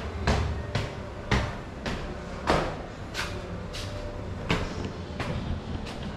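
Footsteps walking at a steady pace, a sharp knock about every half to two-thirds of a second, over a low steady rumble.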